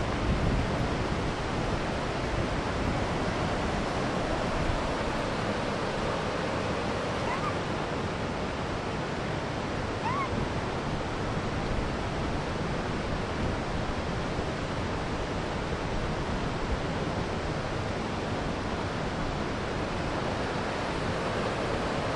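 Steady rushing of a flowing mountain river. Two faint short chirps come through it near the middle.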